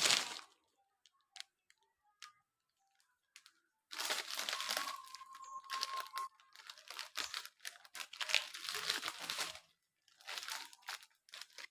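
Plastic strip of sachet coffee packets crinkling as it is handled and hung up, in two long spells of crackling after a few seconds of near quiet with faint clicks.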